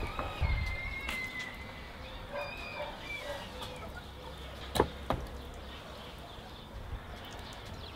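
A rooster crowing faintly, two drawn-out calls in the first three seconds, over quiet outdoor ambience. About five seconds in, a sharp clink of a metal skewer against the steel tray is the loudest sound.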